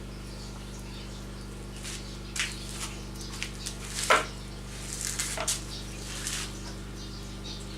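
A dog scrabbling and rustling as it hunts a rat, in scattered short scrapes with one sharper sound about four seconds in, over a steady low hum.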